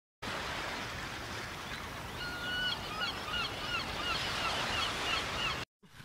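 Surf washing steadily onto a beach, with a bird giving a run of short, falling calls over it from about two seconds in. The sound cuts off suddenly near the end.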